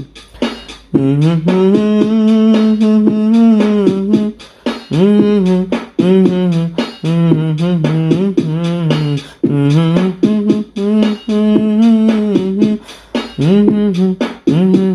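Background music: a wavering melody line over a fast clicking beat.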